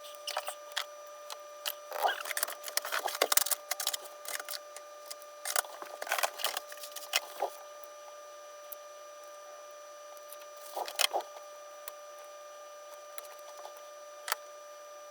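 Small plastic parts and wires being handled inside a prop's casing: irregular clicks, taps and light rattling, busiest in the first half and again about two-thirds of the way in. A faint steady whine runs underneath.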